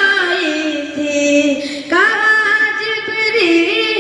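A boy singing a naat unaccompanied, drawing out long melismatic notes without clear words. A held phrase slides downward, breaks off just before two seconds in, and a new phrase begins higher.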